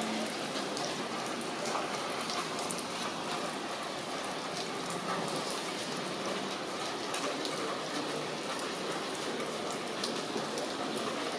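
Steady rain falling: an even hiss with many small drop ticks scattered through it.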